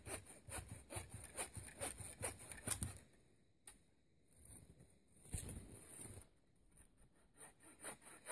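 Footsteps crunching in snow, a quick even run of steps, then a pause. Near the end a hand bush saw starts cutting dry wood in short, rhythmic strokes.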